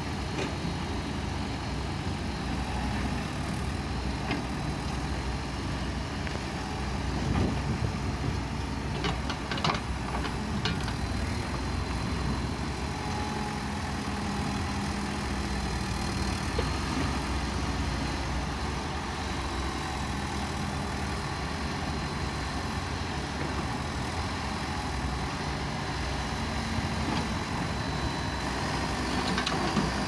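Case 580 Super backhoe loader's diesel engine running steadily while the backhoe arm digs, with a few sharp knocks about a third of the way in.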